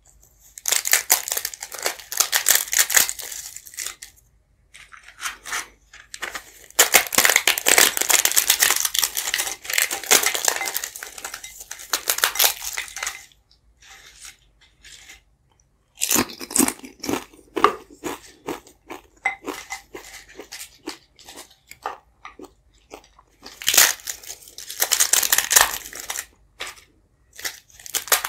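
Dry, crisp flatbread being snapped and crumbled by hand into a bowl of soup, in several bursts of dense crackling with short pauses between.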